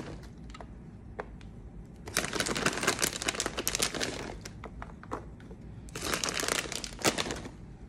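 Plastic bag of shredded cheese crinkling as it is shaken and tipped, in two bouts of dense crackling: about two seconds in and again about six seconds in.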